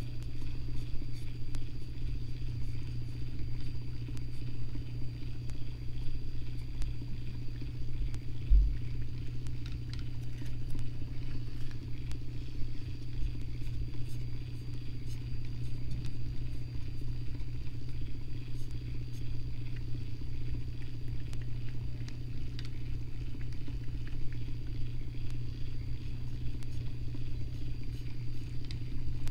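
Electric rod-turning motor running with a steady low hum while it spins the fishing rod, with a soft low bump about eight seconds in.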